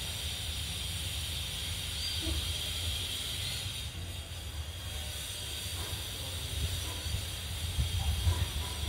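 Steady background hiss over a low, uneven rumble, with a few faint knocks near the end.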